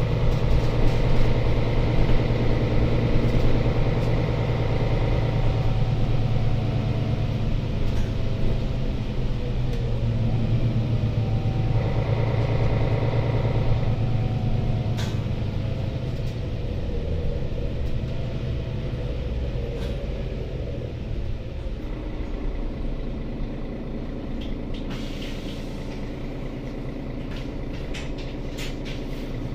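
Mercedes-Benz Citaro C2 city bus heard from inside the passenger cabin while under way: a steady engine and drivetrain hum with road rumble. The engine pitch shifts partway through, and the sound eases off over the last several seconds, with a few sharp clicks and rattles near the end.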